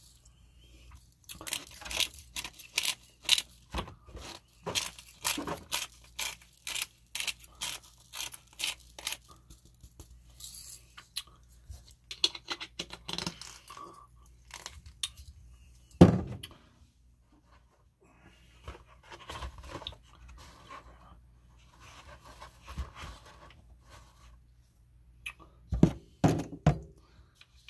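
Close-miked handling noises: rapid crinkling and scraping for the first nine seconds or so, then a single loud knock about sixteen seconds in and a few more knocks near the end.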